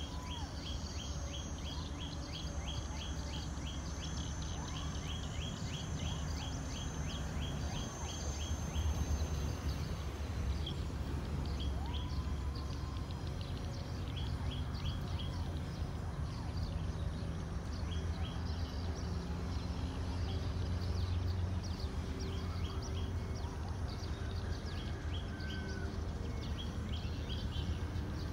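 Distant diesel freight locomotive running with a low steady drone as it approaches. Over it, birds chirp high and fast, about three chirps a second, steadily for the first eight seconds or so and then in shorter runs.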